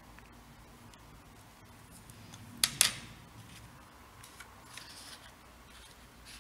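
A paintbrush set down on a plastic watercolour palette lid: two sharp clicks in quick succession about three seconds in. Faint soft paper rustles follow as the watercolour paper is slid over the table.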